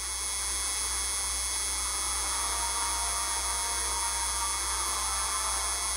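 Steady electrical hum with an even hiss, with no change in level.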